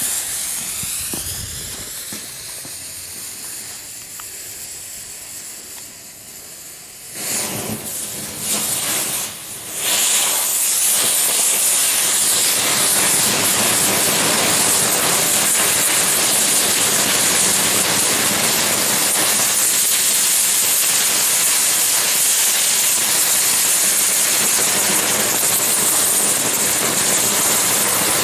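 A homemade firework spinner made of linked fountains burning. At first one jet hisses with a whine that rises in pitch over the first couple of seconds. Around seven seconds more fountains catch in a few louder bursts, and from about ten seconds many fountains spray together in a loud, steady hiss.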